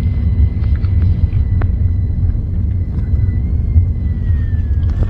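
A steady low rumble with a faint, steady high whine above it and a few soft clicks.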